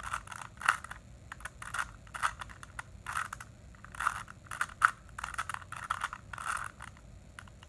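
Rubik's cube layers being turned by hand: a quick run of plastic clacks, about two turns a second, as he works an algorithm to put the last-layer corners in place.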